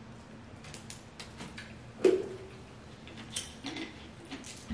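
Eating sounds at a table: scattered small clicks and crackles from food and plastic being handled, with one louder thud about two seconds in.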